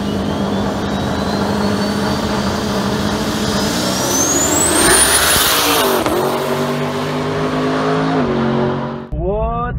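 A performance car's engine under hard acceleration, with a high whine climbing steadily above it for about five seconds and a gear change about six seconds in. Just after nine seconds the sound cuts off abruptly.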